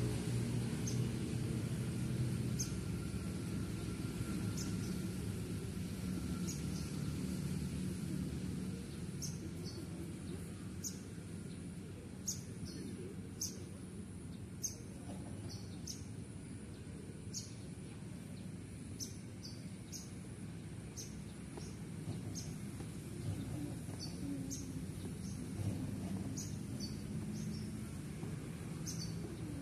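A small bird chirping repeatedly, short high chirps about once a second, more often from about a third of the way in, over a steady low background rumble.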